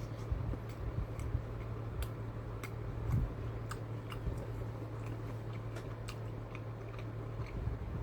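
Close-up chewing of a soft rice and bean burrito, with wet mouth clicks scattered through it over a steady low hum.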